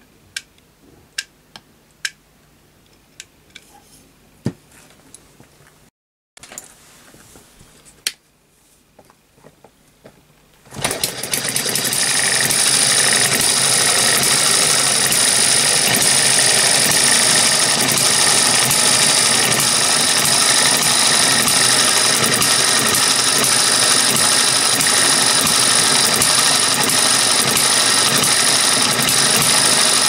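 A few sharp clicks, then about eleven seconds in the Eachine ET1 model hit-and-miss gas engine, a 6 cc single-cylinder, starts and runs steadily at about 1,450 rpm.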